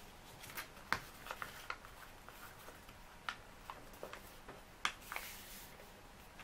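A4 printer paper being folded and creased by hand into a paper airplane: scattered crisp crinkles and taps as fingers press and smooth the folds, the sharpest about a second in and again near five seconds.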